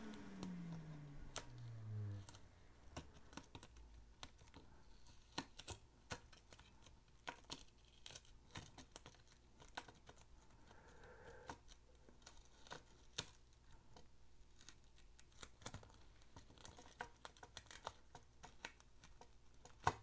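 Adhesive snap-dome membrane sheet being slowly peeled off a remote control's circuit board: faint, scattered ticks and crackles as the adhesive lets go. In the first two seconds a low hum falls in pitch and dies away.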